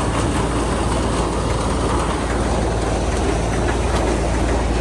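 Grain dryer machinery running steadily while it empties dried corn into a truck: a constant mechanical rumble with a low hum underneath.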